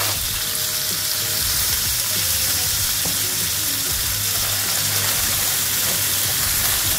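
Live clams sizzling in hot olive oil in a frying pan, a steady frying hiss.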